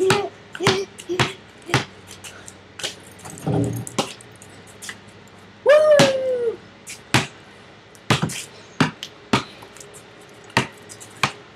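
Basketball bouncing and being dribbled on pavement: irregular sharp bounces with short pauses between runs. About six seconds in there is one brief call that falls in pitch, the loudest sound in the stretch.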